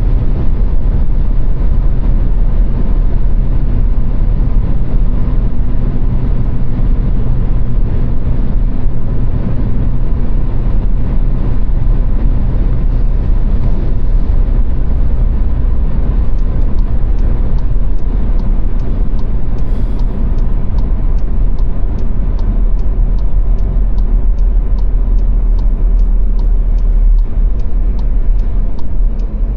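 Car driving at motorway speed: steady road and tyre noise over a low engine rumble. From about halfway, a light, regular ticking joins in, roughly twice a second.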